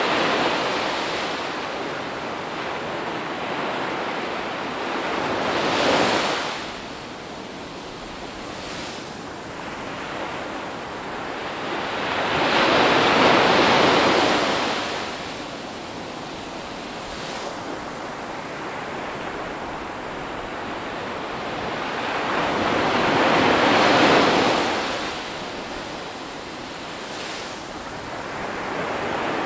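Ocean surf washing on a shore, a steady rushing wash that swells to three louder breaking waves about ten seconds apart and ebbs between them.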